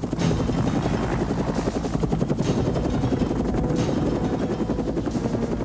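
Helicopter rotor running steadily, a fast, even chopping pulse.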